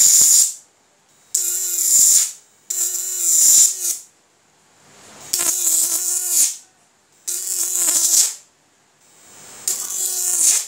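Homemade analog (transistor) electric fishing shocker, stepping 12 V up to high voltage, arcing at its output electrode in six bursts of about a second each. Each burst is a loud crackling buzz with a hiss, starting abruptly and stopping when the contact is broken.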